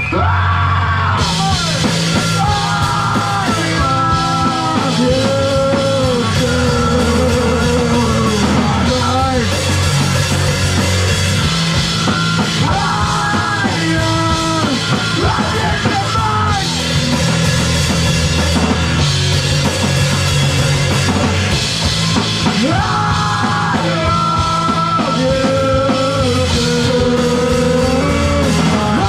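Live rock band playing loud and full: drum kit, bass and distorted guitar, with a melody line riding on top.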